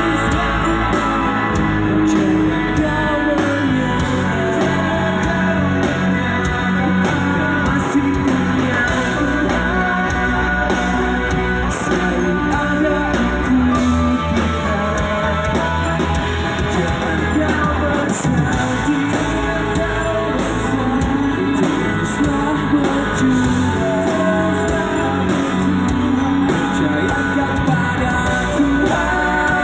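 A rock band playing live, with guitar to the fore and singing.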